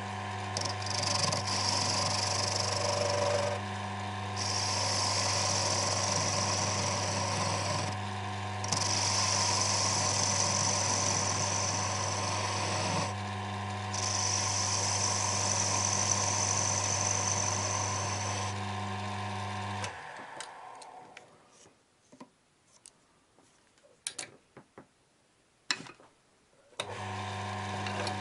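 Small lathe motor running with a steady hum while a hand-held cutting tool shapes a small wooden spike, the hiss of the cut coming and going in four passes. About twenty seconds in the lathe is switched off and runs down, a few sharp clicks follow, and the motor starts up again near the end.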